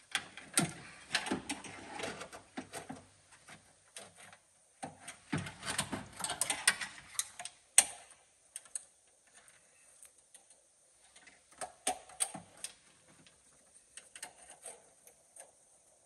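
Door lock actuator and latch parts being worked by hand inside a Chevy Silverado's steel door shell: irregular clicks, knocks and rattles of metal against the door, busiest in the first half, with one sharp click about eight seconds in, then sparser handling noise.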